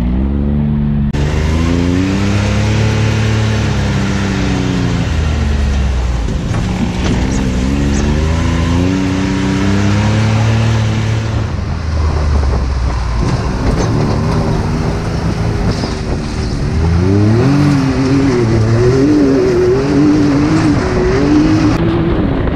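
Can-Am Maverick X3 Turbo side-by-side's turbocharged three-cylinder engine being driven, its revs climbing and dropping again in repeated sweeps as it accelerates and backs off. Near the end the revs waver up and down quickly, heard from the open cab.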